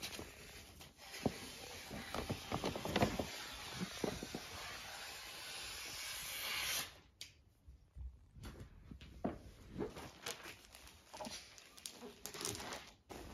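Brown paper bag crinkling and rustling in dense crackles as a Holland lop rabbit moves about inside it. The rustling stops suddenly about seven seconds in, followed by sparse, softer rustles and taps as the rabbits move near wrapping paper.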